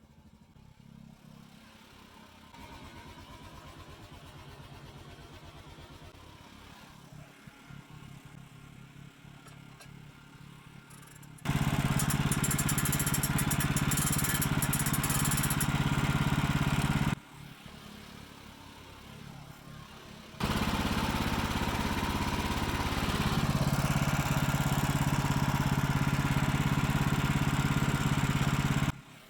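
Wood-Mizer LT15START portable bandsaw mill running while it makes a cut through a log, its engine steady and low. It is faint for the first ten seconds or so, then loud in two long stretches that start and stop abruptly.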